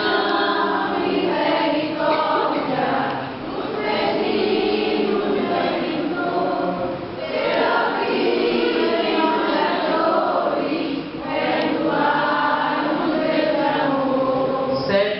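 A group of voices singing a Catholic hymn together, in phrases with short pauses between them.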